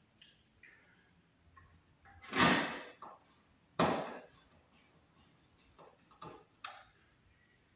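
Hand screwdriver working on a plastic wire-mold round box on the wall: a few light clicks and taps, and two louder scraping handling noises about a second and a half apart.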